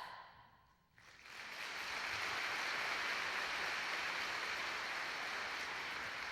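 Audience applauding, rising about a second in and then holding steady.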